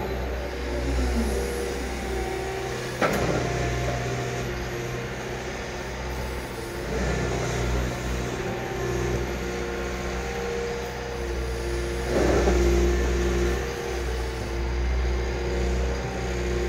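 Liebherr 936 crawler excavator's diesel engine running steadily as the machine swings its boom and digs with the bucket. A sharp knock comes about three seconds in, and a louder burst of noise about twelve seconds in.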